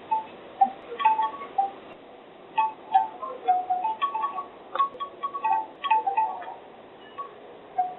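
Bamboo wind chimes knocking together irregularly: short pitched clacks in loose clusters, with a lull about two seconds in and another near the end.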